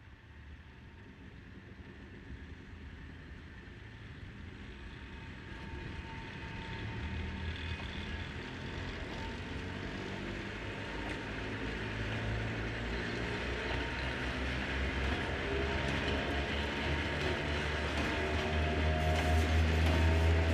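Pair of ED45 electric locomotives moving off with a hopper freight train, running with a low rumble and a whine of several steady tones from the motors and gears. It grows steadily louder as the locomotives draw near.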